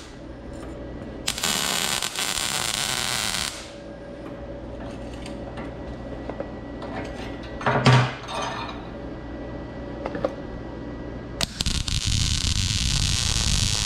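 MIG welding arc from a YesWelder Firstess MP200 set to 80 amps on 1/8-inch mild steel, in two bursts of about two seconds each, one just after the start and one near the end. A short loud knock about eight seconds in.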